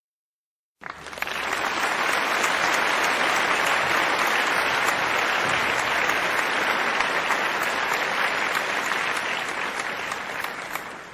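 Applause sound effect: a crowd clapping, starting about a second in, holding steady, then fading out near the end.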